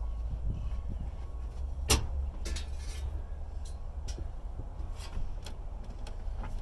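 Scrap being handled: scattered light knocks and one sharp clank about two seconds in, over a steady low rumble.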